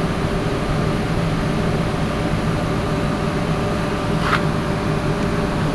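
Electric compressor running with a steady hum and whir, with one short click a little past four seconds in.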